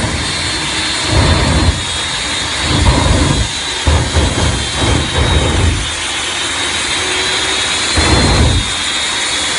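Jet engine on a VW camper van running stationary with a steady high-pitched whine, while its afterburner lights in short deep blasts about five times, flames shooting from the tailpipe.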